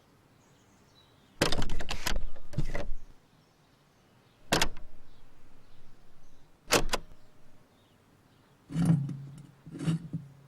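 Irregular knocks and clatters: a rattling burst about one and a half seconds in, single sharp knocks near five and seven seconds, and a duller clatter with a low rumble near the end.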